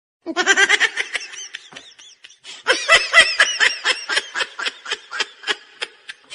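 High-pitched laughter in quick repeated bursts, several a second, breaking off briefly about two seconds in and then going on.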